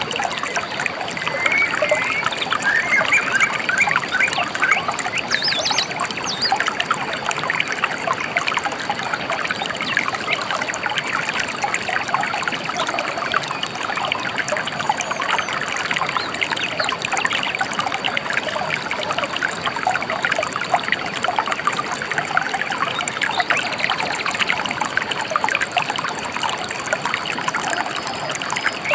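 River water trickling and babbling steadily, with a few brief bird chirps in the first few seconds.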